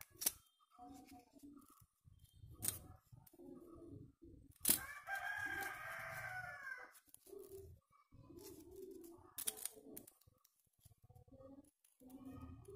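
A rooster crowing once, a loud call of about two seconds, about five seconds in. Around it, crepe paper is rustled and handled, with a few sharp clicks as it is folded and cut with scissors.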